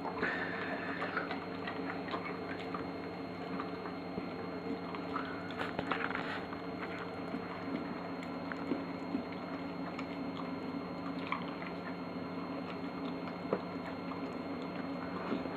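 Flat-coated retriever licking and chewing food off a glass plate: a steady run of small wet licks, smacks and clicks.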